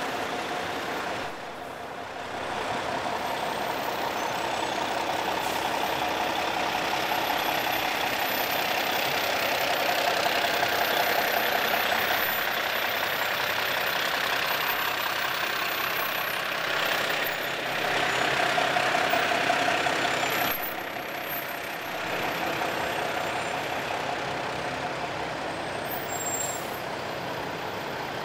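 Fire trucks' engines running close by: a steady mechanical rumble and hiss that swells at times and dips briefly about twenty seconds in.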